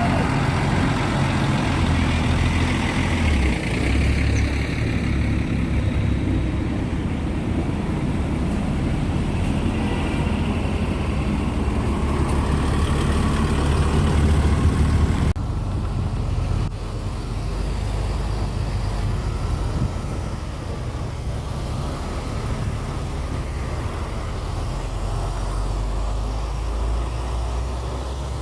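Diesel bus engine running close by amid road traffic: a steady deep rumble. About halfway through the sound changes abruptly and the rumble becomes weaker.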